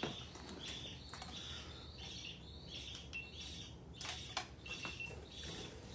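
Budgie chirping in short, high chirps repeated about twice a second, with a couple of brief whistled notes and a few sharp clicks.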